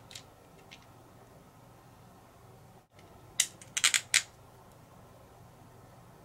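Small hardware being fitted by hand: a metal nut and bolt clicking against a plastic star knob. One click at the start, then a quick run of five sharp, loud clicks about three and a half seconds in.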